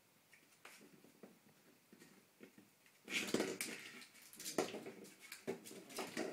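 Shetland sheepdog puppy at play with a chew: faint taps at first, then from about halfway in repeated bouts of puppy play growling mixed with the chew knocking and skidding on the wooden floorboards.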